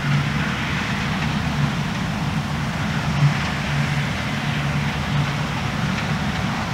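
New Holland CR10.90 combine harvester running steadily while cutting and threshing winter oilseed rape: a low, even engine drone with a broad hiss of machinery over it.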